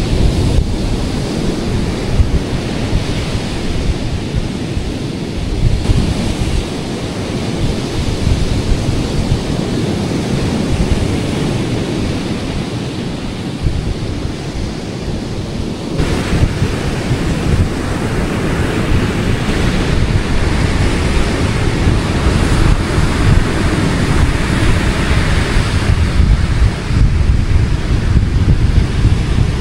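Ocean surf washing onto a beach, with wind buffeting the microphone in a fluttering low rumble. About halfway through the sound changes abruptly, and the hiss of the surf becomes stronger.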